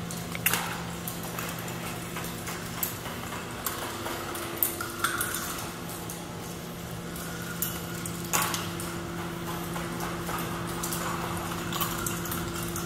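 Plastic balls clicking and clattering irregularly as they run through a giant K'NEX ball contraption, over the steady hum of its machinery, with a second hum tone joining a few seconds in.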